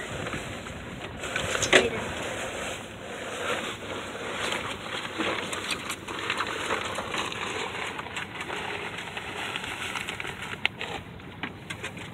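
Rustling, crackling and scattered knocks of handling aboard a small sailboat, with one louder knock about two seconds in.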